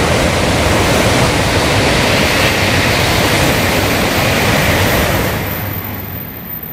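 Shinkansen train passing at speed on the adjacent elevated track: a loud, steady rush that fades away after about five and a half seconds.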